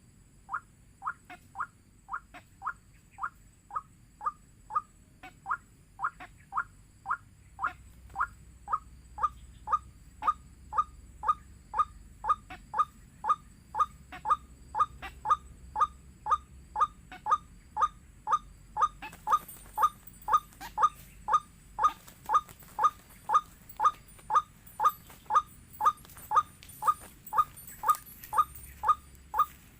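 White-breasted waterhen calling a long, even series of short, sharp 'wak' notes, about two a second, growing a little louder as it goes on: the bird's territorial 'ruak-ruak' call, the sound used to lure these birds.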